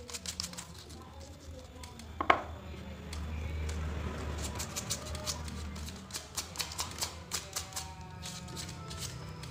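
Small knife whittling a wooden peg by hand: a run of short, sharp cutting and scraping strokes, with one louder ringing knock about two seconds in.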